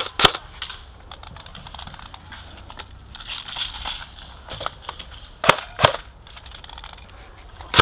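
Airsoft guns firing in single shots: one sharp crack just after the start, fainter rapid ticks of more distant fire, then two loud shots about half a second apart past the middle.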